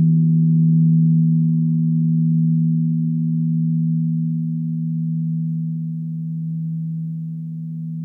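Singing bowl ringing on after being played, its low tones holding steady and slowly fading, while the faint higher overtones die away within the first few seconds.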